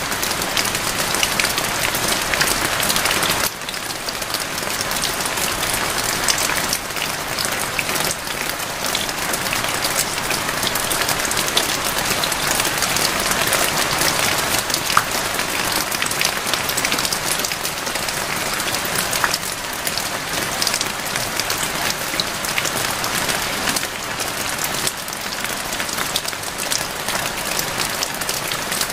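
Steady, heavy rain falling, a dense hiss of countless small drop hits. There is a brief dip in level about three and a half seconds in.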